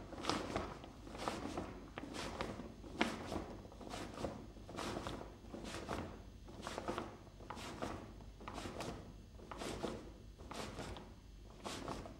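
Steady walking footsteps, about one a second, with fabric brushing close against the microphone.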